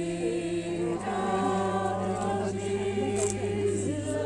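Several voices singing a hymn together, unaccompanied, in long held notes that change about a second in and again near the end.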